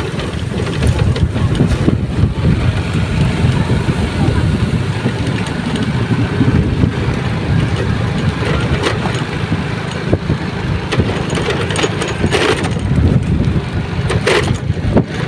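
Strong wind in a rainstorm buffeting the microphone: a steady heavy rumble with a noisy hiss above it, and a few sharp clatters near the end.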